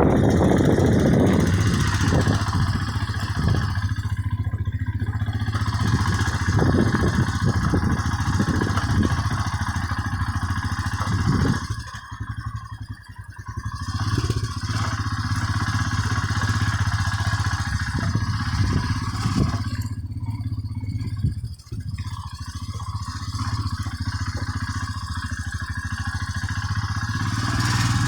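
Vehicle engine running steadily while travelling over a rough off-road track, with clattering and scraping over it. The sound drops away briefly twice, about 12 seconds in and again about 21 seconds in.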